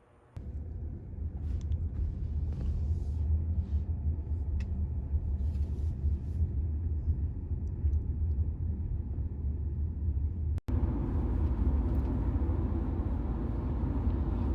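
Low, steady rumble of a car in motion, starting abruptly about half a second in and cutting out for a moment near the end.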